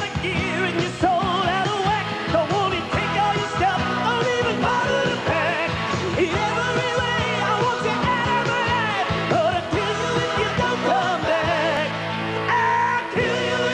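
Rock band playing live, with keyboards and drums and a lead vocal over them.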